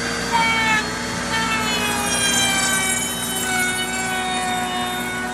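Router on a router table running with a steady whine, its pitch sagging and shifting slowly as the bit cuts poplar. The sound gets louder about half a second in.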